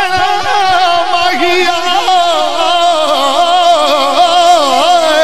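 A man singing a naat into a microphone, holding one long, ornamented note without words. The pitch wavers and slides, then drops near the end.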